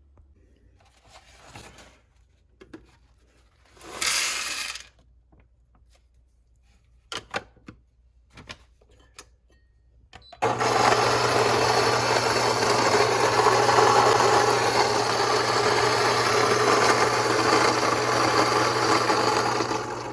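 A few handling clicks and a short rustle, then, about halfway through, the Fellow Ode Brew Grinder's flat-burr motor starts suddenly. It runs with a steady whir and low hum, grinding coffee beans, and stops near the end.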